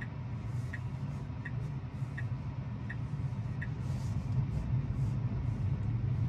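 Low road and tyre rumble inside the cabin of an electric Tesla Model 3, growing louder toward the end as the car gathers speed from a crawl. Over it the turn signal ticks steadily, about once every three quarters of a second, and stops about three and a half seconds in.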